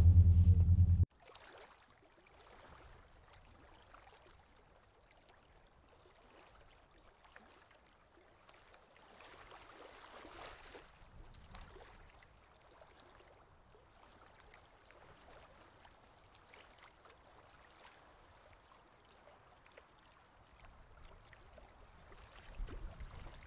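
Bowed double bass and cello music cuts off suddenly about a second in. Then near silence, with a faint trickle of spring water running over limestone that grows a little louder around the middle.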